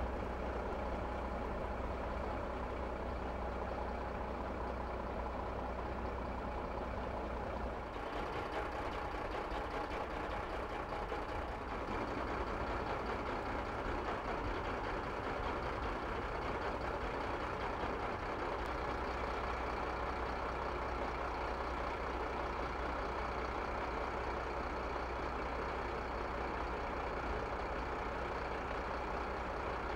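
Fire engine's diesel engine idling steadily, a low constant hum under a broad wash of outdoor noise, with a slight shift in the background about eight seconds in.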